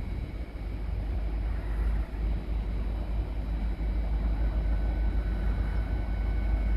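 Steady low rumble, with a few faint steady high-pitched tones above it, across an open railway junction.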